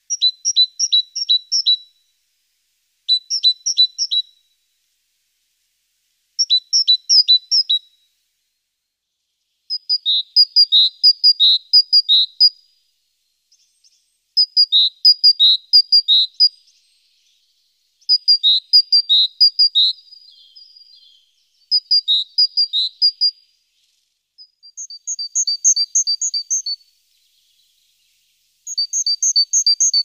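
Great tit singing its two-note song, each phrase a quick run of paired high and lower notes repeated four to six times. About nine phrases follow one another with short pauses between them.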